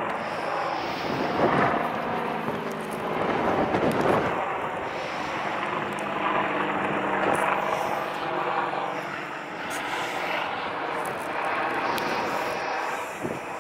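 AH-64 Apache attack helicopter flying a display overhead: steady rotor and turbine noise that swells and eases as it manoeuvres, loudest about a second and a half in and again around four seconds.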